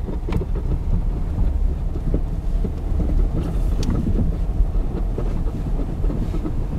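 Car in motion heard from inside the cabin: a steady low rumble of engine and tyres.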